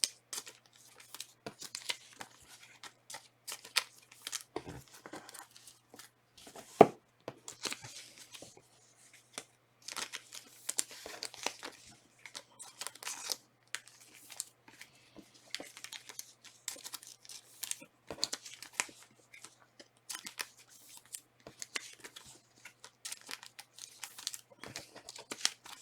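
Trading card packs being torn open and their foil wrappers crinkling as the cards are handled: a run of short, uneven rips and rustles, with one sharper snap about seven seconds in.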